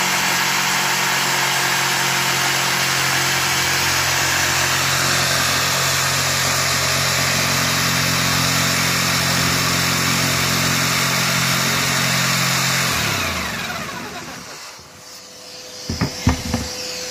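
Jigsaw cutting through a laminate kitchen worktop, with a vacuum cleaner running alongside to suck up the sawdust. About 13 seconds in the saw winds down and stops, falling in pitch, and the quieter vacuum carries on. A few knocks come near the end.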